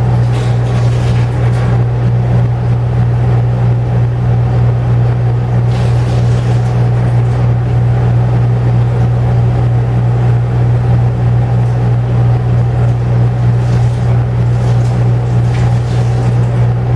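Air conditioner running, really loud: a steady low hum under an even rushing noise.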